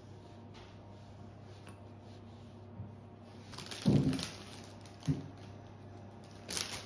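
Kitchen handling sounds while a wrap is being made: a loud dull rustling thud about four seconds in, a short sharp knock a second later, and a brief rustle near the end, over a low steady hum.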